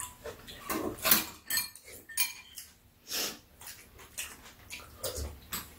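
Metal spoons clinking and scraping against ceramic bowls in a string of short, irregular clicks, with the mouth sounds of two people eating.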